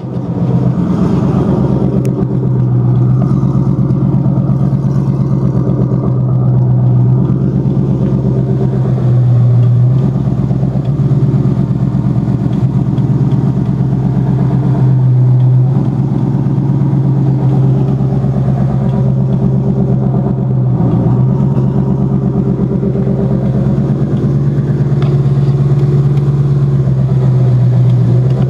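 Turbocharged 5.0 L Coyote V8 of a 2016 Mustang GT running loud and steady without revving, with no exhaust system fitted. It sets in abruptly and holds an even note throughout.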